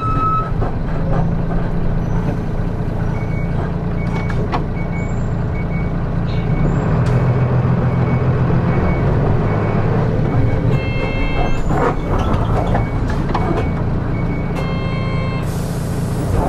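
Nissan Diesel Space Runner city bus heard from inside, its diesel engine running steadily. A short electronic beep repeats a little over once a second. Two brief chime-like tones sound near the end, followed by a burst of air hiss.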